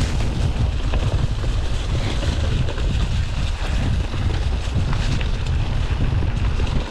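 Wind buffeting the microphone of a chest-mounted camera on a moving mountain bike: a steady, heavy low rumble with scattered faint knocks.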